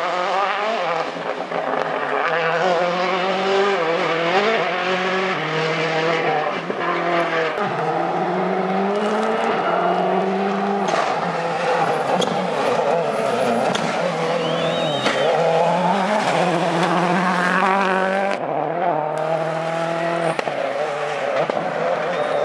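Rally car engines revving hard as the cars pass on a tarmac stage, the pitch climbing through each gear and dropping again and again as they shift and brake for the bends.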